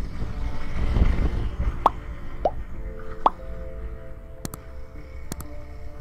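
Subscribe-button animation sound effects over soft background music: three quick rising pops, then two sharp mouse clicks about a second apart.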